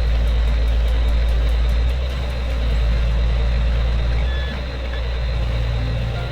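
Heavy vehicle engine running steadily with a deep rumble.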